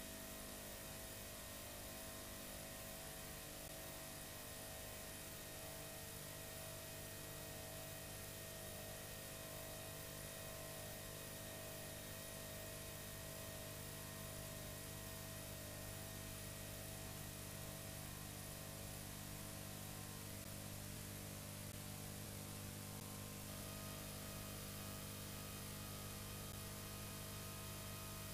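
Faint, steady electrical hum and hiss of a VHS tape transfer carrying no programme sound; a few of the faint hum tones shift near the end.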